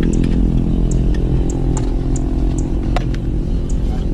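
A steady mechanical hum made of several low tones, with scattered light clicks over it and one sharper knock about three seconds in.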